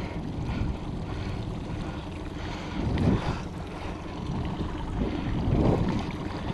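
Low, uneven rumble of wind on the microphone and choppy water against a small boat, swelling briefly about three seconds in and again near the end.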